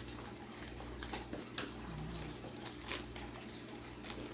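A trading-card pack being opened and its cards handled: a string of small crinkles and ticks from the wrapper and cards.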